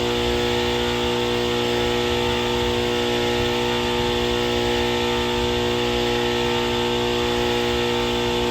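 Craftsman 8-inch table saw running at steady speed with no cut being made: an even motor hum with a low rumble.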